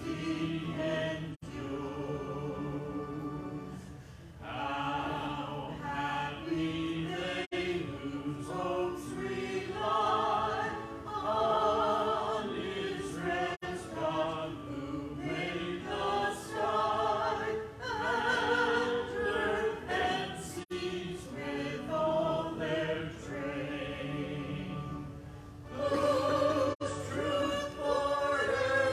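Choir singing an anthem, in phrases with wavering vibrato on the held notes.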